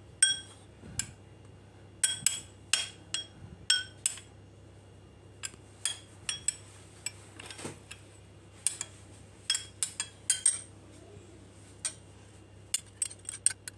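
Metal spoon clinking against a small glass bowl as an egg is beaten into milk for an egg wash: many sharp clinks with a short ring, at an irregular pace and sometimes in quick runs.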